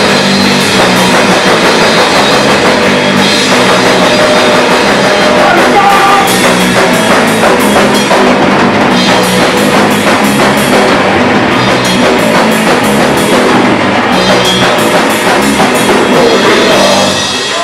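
Live punk band playing loud: distorted electric guitars and bass over a drum kit with constant cymbal hits, filling a small room.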